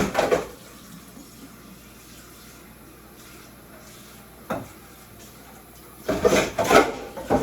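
Kitchen tap running as dishes are rinsed in the sink, with a single knock about four and a half seconds in and dishes clattering near the end.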